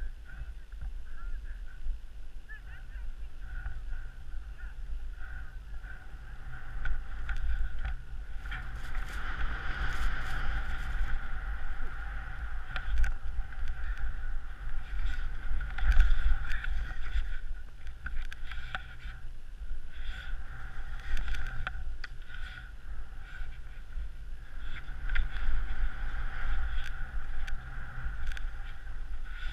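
Skis sliding and carving over snow during a downhill run, with wind rumbling over the camera's microphone and a steady whistle running through it; the run grows louder about a third of the way in and again near the end.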